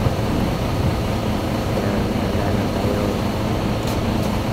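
Steady low mechanical drone, like a diesel engine or large machine running, with two light metallic clicks about four seconds in.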